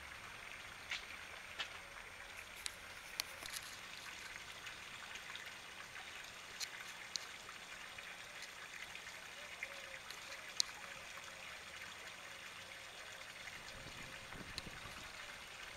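Water trickling steadily from a small garden pond waterfall, spilling from a tub outlet into the pond, with a few light clicks scattered over it.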